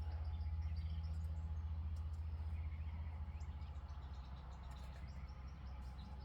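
A steady low hum, loudest in the first few seconds and then easing off, with faint bird chirps over it.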